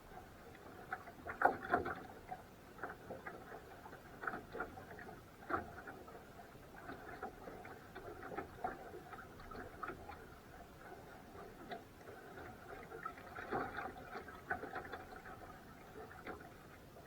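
Rowing boat under way: light, irregular knocking and pattering of oars in their locks and water against the hull, with a few louder knocks.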